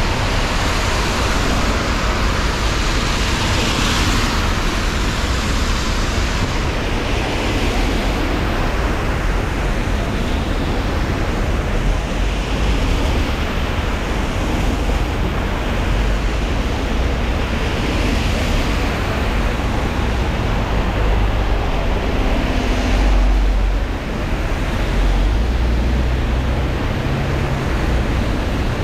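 Rain and city traffic on a wet road: a steady hiss of tyres through water and falling rain, swelling as each bus, car and taxi passes. A heavier vehicle's low engine rumble rises about three-quarters of the way through.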